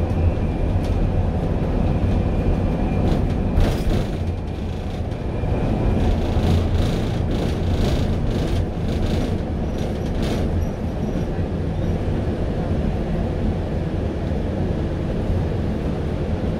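Articulated bus on the O-Bahn guided busway heard from inside the front of the cabin: a steady low rumble of engine and wheels as it runs off the concrete guide track onto ordinary road. Brief clattering and rattling comes about four seconds in and again a few seconds later.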